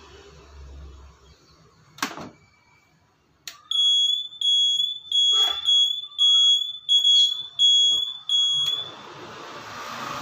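A scooter's hazard-light flasher buzzer beeping as the indicators flash: about nine short, high beeps at roughly two a second, starting about three and a half seconds in and stopping near the end. A single sharp click comes about two seconds in.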